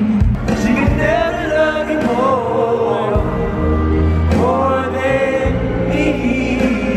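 Live pop concert music: a lead singer's voice gliding through a sung melody over a band with heavy, steady bass notes.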